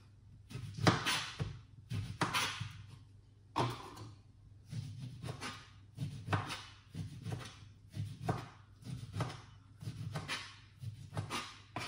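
Irregular knocks, thuds and clatter of kitchen things being handled, about one or two a second.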